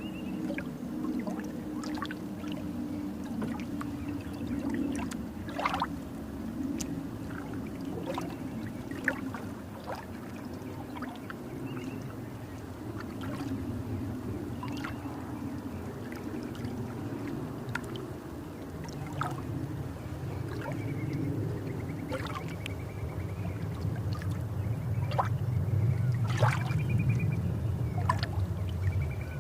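Calm beach surf: small waves washing and lapping at the shore over a steady low rumble, with scattered small splashes. It swells somewhat louder after about twenty-four seconds.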